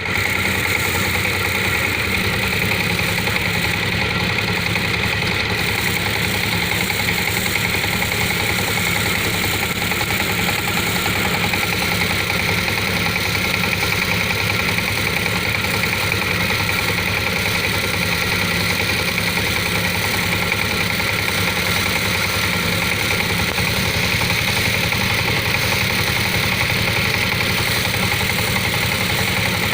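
Small tiller engine running steadily at an even speed.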